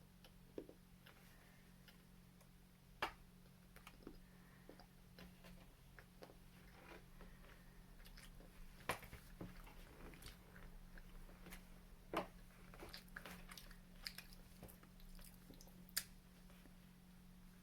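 Quiet chewing of chocolate, with scattered small clicks and taps, over a faint steady hum.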